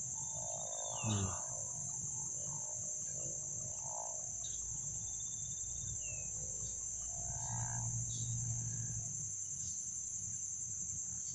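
Crickets chirring in one steady, high-pitched drone that does not break.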